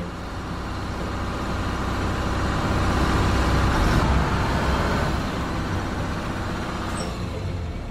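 Truck engine sound effect driving past, growing louder to a peak about halfway through and then fading away.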